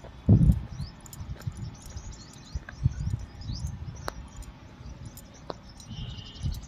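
Outdoor ambience: irregular low buffeting and thumps on the microphone, the strongest about half a second in, with scattered faint high clicks and a few short faint chirps.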